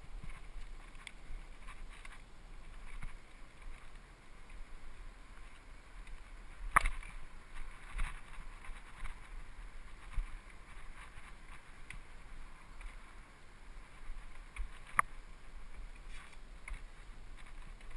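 Mountain bike rolling fast over packed dirt singletrack: steady tyre and riding noise broken by small rattles and a few sharp clacks, the loudest about seven seconds in and another about fifteen seconds in.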